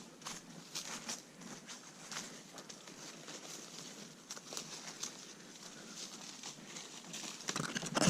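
Footsteps walking on a trail, an uneven crunch about every half second, louder near the end.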